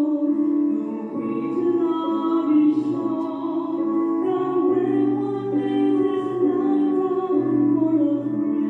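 A woman singing a slow song with long held notes into a microphone, over a sustained low accompaniment.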